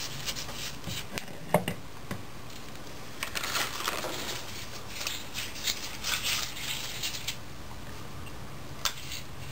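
Handling noise as a 4L80E transmission's valve body is worked loose and lifted off the case: a sharp click about a second and a half in, then several seconds of rustling, scraping and small clicks, and one more click near the end.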